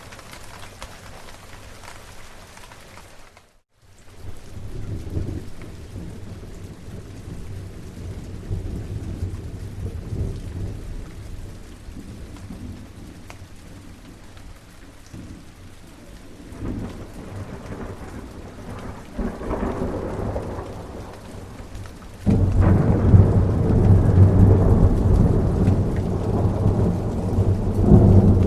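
Steady rain with rolling thunder. The sound drops out briefly about three and a half seconds in, then low thunder rumbles swell and fade. Near the end, much louder thunder sets in suddenly and keeps rumbling.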